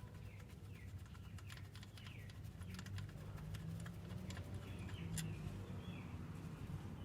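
A run of light, quick clicks from a hand tool undoing the bolts of the E46's power steering pump, over a low steady hum. Short falling chirps are heard several times.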